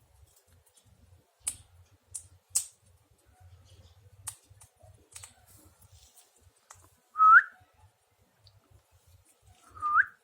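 Pet parrot giving two short, loud rising whistles a few seconds apart, with a few short sharp high clicks before them.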